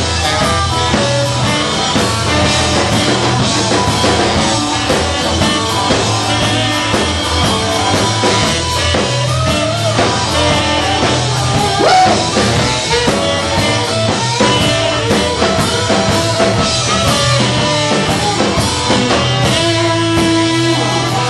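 Live rock and roll band playing loudly, with electric guitar, drum kit and saxophone, heard from among the audience.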